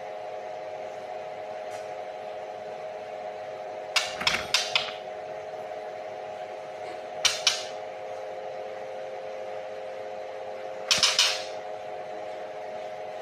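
A steady mechanical hum, with three short clusters of sharp clicks or taps: several in quick succession about four seconds in, two about three seconds later, and a denser burst near the end.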